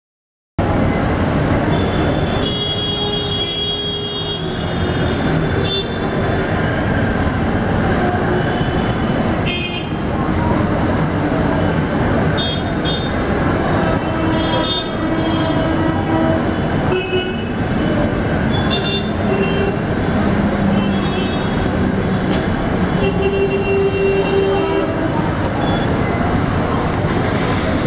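Steady, loud traffic din with scattered short horn toots and voices over it, starting suddenly after a brief silence.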